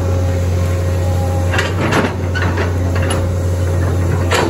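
Heavy land-clearing machine's diesel engine running steadily with a low drone, with a few sharp knocks and cracks near the middle and again near the end.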